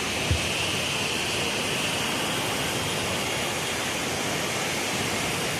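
Heavy water flow rushing through the Koshi Barrage's gates: a steady, even rushing noise, with a brief low thump about a third of a second in.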